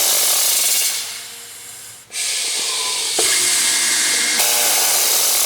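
Grass Eco Press P hinge boring and insertion machine cycling on compressed air: a loud hiss from its pneumatic cylinders fades away about a second in, then comes back with a click about three seconds in.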